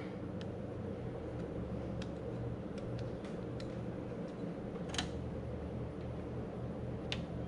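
Steady low hum of a shop fan, with scattered light clicks of hands handling the metal lid of an oil filter canister while working its old O-ring off. The sharpest click comes about five seconds in.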